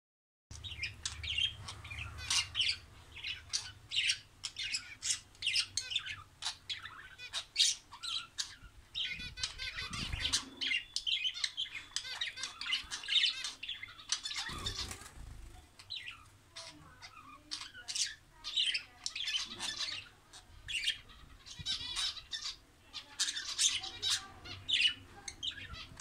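Budgerigars chattering: a continuous stream of short, rapid chirps and squawks, busiest in the middle, with a couple of low thumps partway through.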